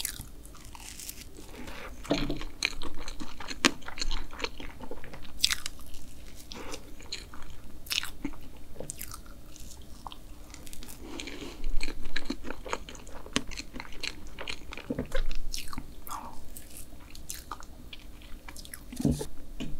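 Close-miked chewing of soft whipped-cream sponge cake, with many sharp wet mouth clicks scattered throughout.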